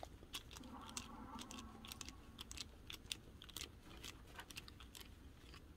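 Faint, irregular small clicks and ticks of a precision screwdriver turning a small screw out of the plastic end cap of a Dometic toilet spring cartridge.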